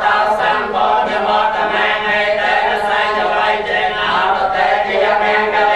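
Many voices chanting together in a continuous Buddhist Pali recitation.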